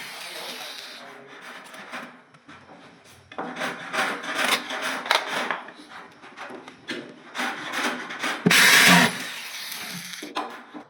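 A woodworking hand tool scraping across wood in irregular strokes, with one longer, louder stroke near the end.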